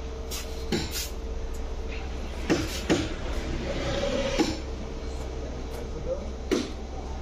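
Sharp clicks and clacks from the sofa's adjustable headrests being handled, about seven of them spaced irregularly, over a steady electrical hum.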